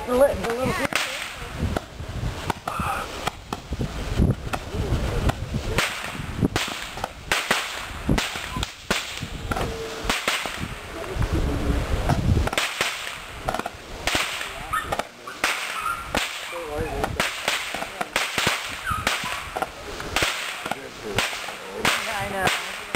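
Fireworks going off: a long, irregular run of sharp cracks and pops, several a second.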